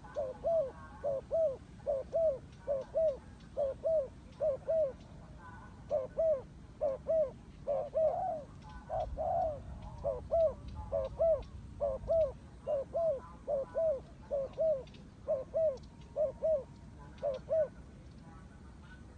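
Turtle dove cooing: a quick run of short coos, each rising then falling, about two a second and often paired, with a couple of brief pauses.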